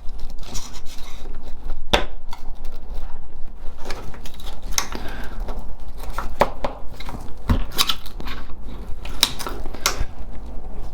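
Screwdriver working at the parts of a 2008 Volvo V70 door lock mechanism: irregular clicks, scrapes and small knocks of tool against metal and plastic as he pries a piece free.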